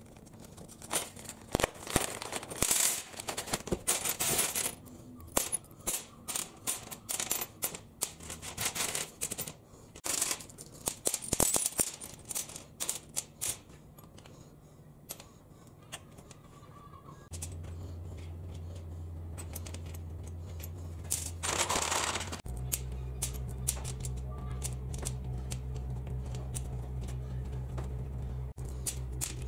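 Loose steel hex nuts and washers clinking and clattering as they are tipped from a plastic bag and set down by hand on a steel table top, in quick runs of small metal clicks. About halfway through a steady low hum comes in, getting stronger a little later, with a short rattle just before.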